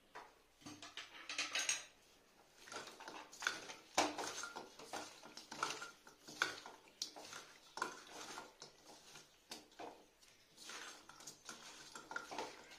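Hands mixing small whole carp with turmeric and salt in a stainless steel bowl: irregular clinks and scrapes of fish and fingers against the metal.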